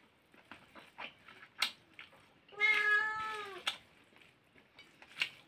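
A cat meows once, a single drawn-out call of about a second that drops in pitch at the end. Around it are soft clicks and smacks of eating rice and beef by hand.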